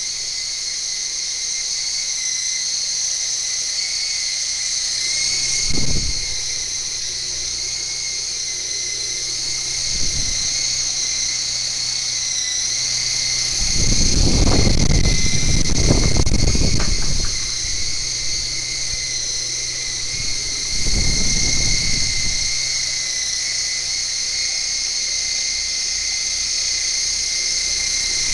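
Toy RC Apache Longbow helicopter's small electric rotor motors whining steadily at a high pitch in flight. Several bursts of low rumble break in, the longest about halfway through while the helicopter is close by.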